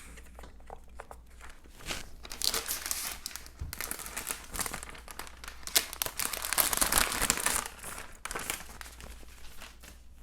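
Protective wrapping being pulled off a new laptop, crinkling in irregular bursts. It is loudest a little past the middle and dies down near the end.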